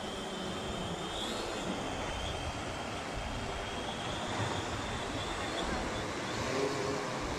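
SHARKEN bait-drop drone flying out and climbing overhead with a bait and line slung below, its propellers giving a thin high whine that wavers slightly, over a steady wash of surf.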